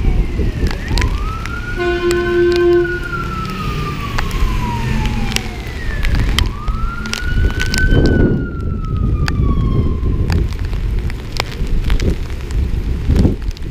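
Fire engine siren wailing in two slow cycles, each rising and then falling in pitch, with a short air-horn blast about two seconds in. Steady rain and road noise run underneath.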